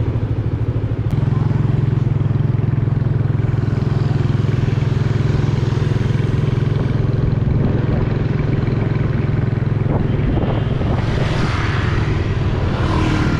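Motorbike engine running steadily with a constant low hum.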